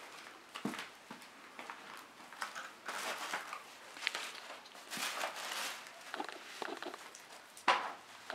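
Tissue paper and toy packaging rustling and crinkling in short irregular bursts as toys are taken out of a box, with a sharper rustle near the end.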